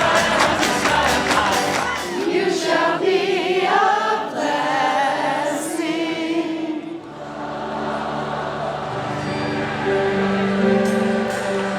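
Music with a group of voices singing. About seven seconds in it dips briefly and gives way to steadier held chords.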